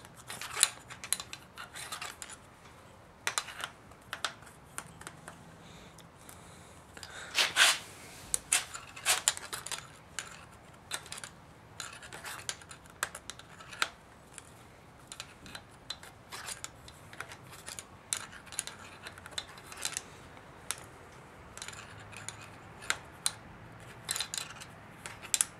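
Irregular metallic clicks, taps and scrapes of a screwdriver working against an engine's cylinder head, packing string down through the spark plug hole to fill the cylinder and hold the valves up for valve seal work.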